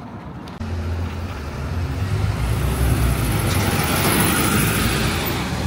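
Bus engine running with road noise, starting abruptly about half a second in and building over the next few seconds.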